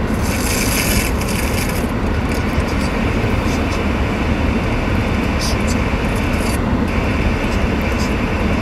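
Steady road and engine rumble inside a moving car's cabin, picked up by the camera's built-in microphone. A higher hiss rises over it at the start and again near the end.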